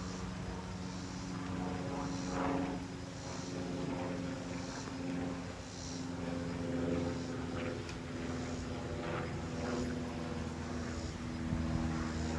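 Steady drone of an engine, a constant hum with several even tones that holds its pitch throughout.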